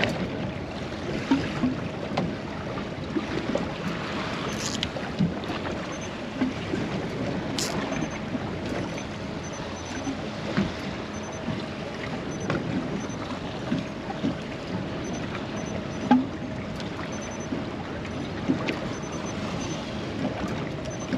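Water lapping and slapping against the hull of a small boat, with wind on the microphone and a faint steady hum throughout. Scattered light knocks come through now and then.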